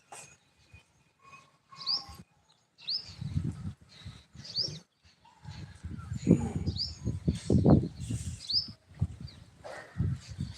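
A bird giving a short rising chirp five or so times at uneven intervals, over bursts of low rumbling.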